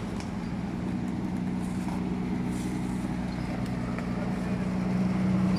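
Engine of a lifted off-road 4x4 running steadily at low speed, growing gradually louder as the vehicle approaches.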